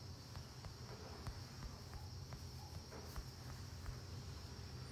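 Quiet room tone: a steady low hum and a thin, steady high-pitched hiss, with a few faint scattered ticks and taps.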